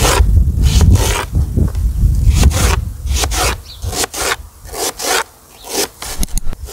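Kitchen knife cutting onion on a plastic cutting board: uneven crisp cuts and scrapes, about two a second, over a low rumble that fades about halfway through.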